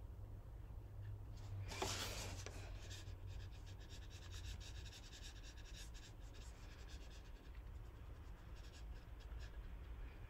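Watercolour brush strokes brushing faintly across paper, with a louder rustle about two seconds in as the sheet is shifted on the table.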